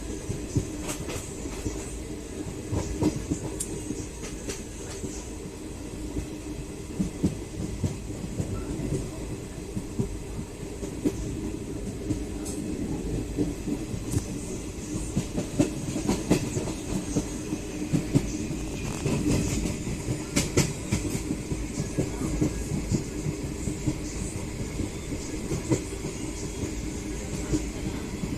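Passenger train running along the track: a steady rumble with frequent irregular clicks and knocks of the wheels over the rails.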